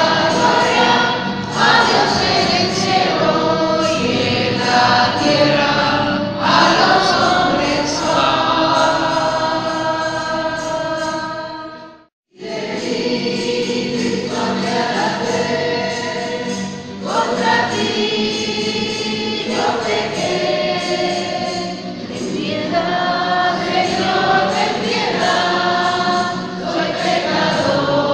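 Choir singing a slow religious hymn, broken by a brief drop-out to silence about twelve seconds in before the singing resumes.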